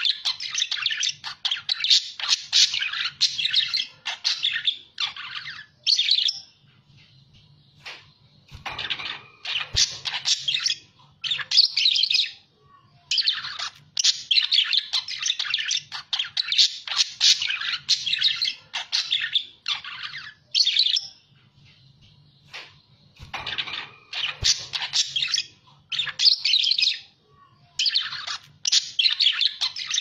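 Budgerigars chattering and warbling rapidly in bursts of a few seconds, broken by short pauses.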